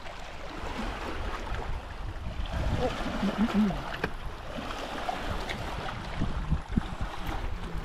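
Water sloshing and splashing under a low, uneven rumble, with a faint voice briefly about three seconds in and a single click about four seconds in.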